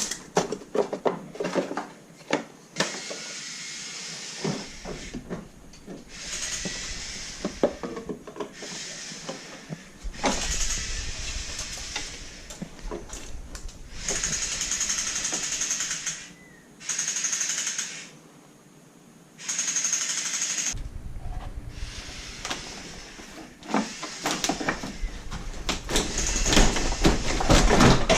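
Small power tool run in repeated bursts of one to three seconds, with sharp clicks and clinks between the bursts.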